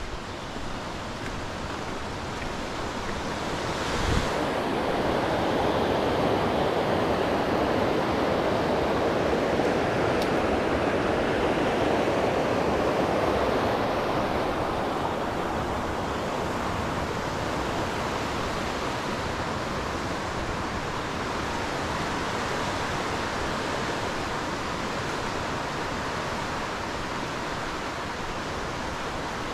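Steady rush of running water, growing louder about four seconds in and easing off a little after about fourteen seconds. A brief knock sounds about four seconds in.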